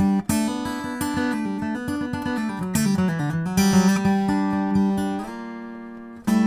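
Taylor 224ce-UA DLX acoustic guitar strummed in chords, with a bass note dipping down and back up midway. Near the end one chord is left ringing and fading for about a second before the strumming starts again.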